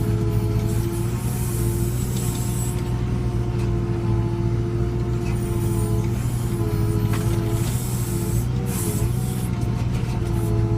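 JCB 3CX backhoe loader's diesel engine running steadily under digging load, with short hissing sounds coming and going several times.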